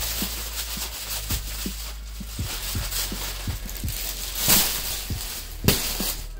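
Plastic packaging crinkling and rustling as a bagged bedding set is handled and set down on a bed, with soft low knocks throughout and two louder crinkles, about four and a half seconds in and near the end.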